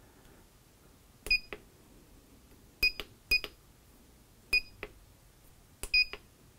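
Membrane keypad of a Qinsi QS-5100 reflow oven being pressed five times at uneven intervals. Each press gives a key click and a short high beep from the oven's controller, confirming the keypress.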